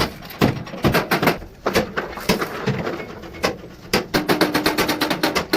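Repeated sharp knocks and taps, like hammer blows on metal. They are irregular at first and come several a second after about four seconds, with a short steady low tone under them near the end.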